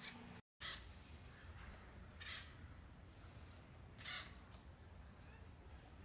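Acorn woodpeckers giving a few short harsh calls, the clearest about two seconds in and again about four seconds in, over a faint low rumble.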